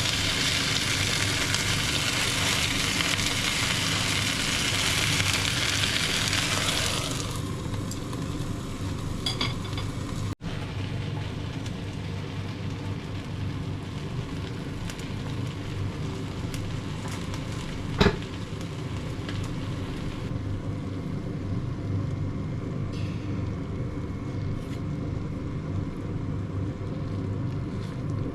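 Food sizzling hard as it grills, the sizzle dying down about seven seconds in, over a steady low hum. A single sharp clack about eighteen seconds in.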